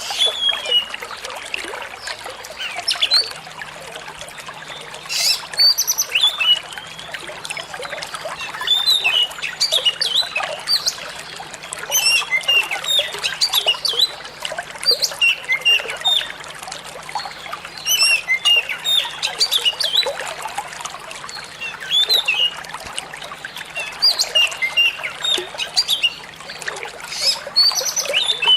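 Oriental magpie-robin singing a run of quick, varied chirps and whistles in clusters every second or two, over a steady sound of flowing, trickling water.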